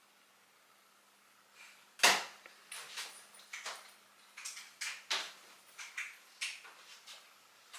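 A sharp knock about two seconds in, then a run of irregular, short clicks and knocks.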